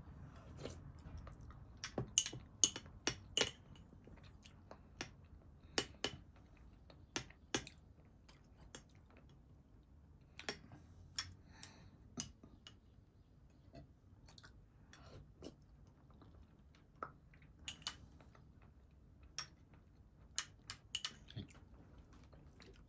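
Small metal spoon clinking and scraping against a ceramic ramekin while yogurt is eaten, with chewing. Irregular sharp clicks, bunched most strongly about two to three seconds in.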